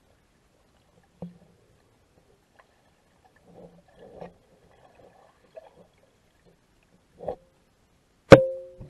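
Underwater action-camera audio: a few faint clicks and soft bumps, then a loud sharp knock near the end that rings briefly and dies away. This is the camera in its waterproof housing being knocked while it is handled underwater.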